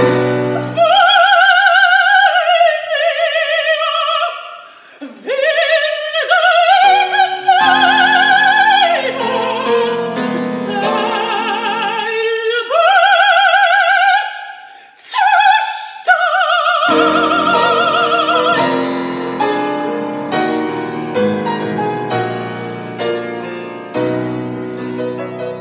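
Dramatic soprano singing an operatic aria with wide vibrato over piano accompaniment. Her voice ends on a long held note about two-thirds of the way through, and the piano plays on alone.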